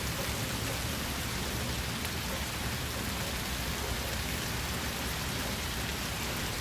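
Steady rain falling, an even, continuous hiss of drops without letup.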